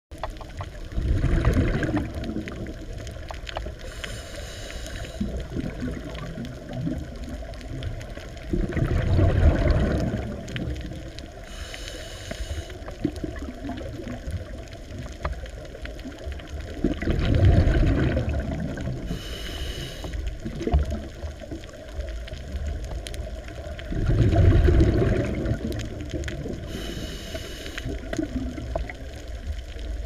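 Scuba diver breathing through a regulator underwater: a rush of exhaled bubbles about every seven or eight seconds, with a short, faint hiss of inhalation between them, over a steady low water rumble.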